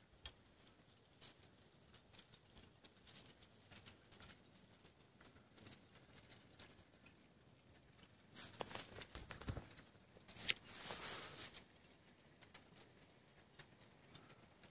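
Faint, scattered ticks and crackles of thin lake ice breaking up around the boat. About eight seconds in and again around ten seconds in come two louder bursts of noise.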